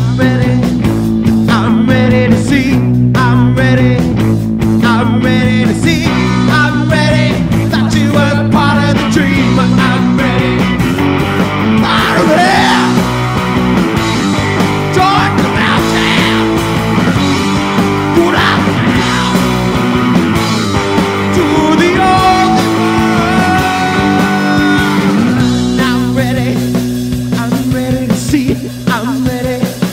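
Background rock music with guitar and singing.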